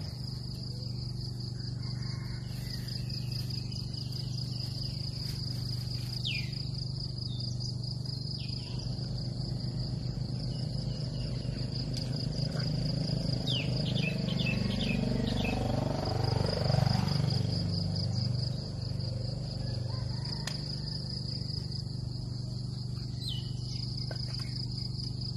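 Insects trilling steadily, with birds giving short chirps now and then. Under them runs a low droning hum that swells and bends in pitch around the middle.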